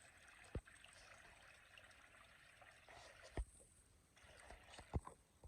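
Faint trickling of a small spring, with a few soft low thumps.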